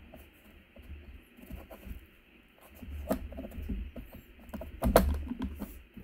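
A hard plastic plate being pressed and shifted by hand against a metal dumbbell end housing, making scattered scraping, rustling and small clicks as its holes are worked down over raised bosses. There is a sharper knock about five seconds in.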